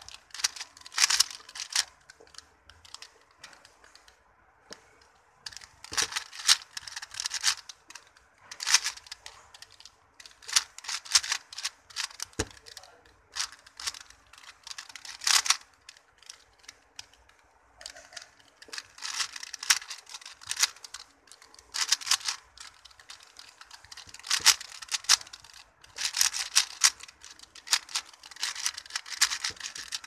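Plastic 4x4 Rubik's cube being turned by hand: quick clicking and clattering of the layers in bursts of a second or two, with short pauses between.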